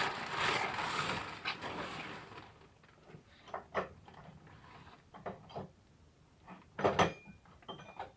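A power tool runs on the A/C compressor clutch puller for about two and a half seconds and stops. It is followed by scattered metal clicks and clinks of tools being handled, with one louder clank near the end.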